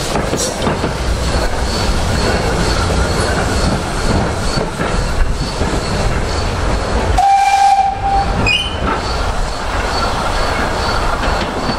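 Small industrial saddle-tank steam locomotive moving off, with steam hissing from its open cylinder drain cocks and exhaust. About seven seconds in, its whistle gives one short blast of under a second, followed by a brief higher squeal.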